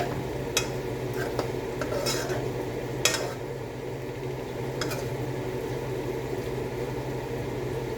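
A utensil stirring food in a cooking pan, with several sharp clinks of metal against the pan over a steady low hum.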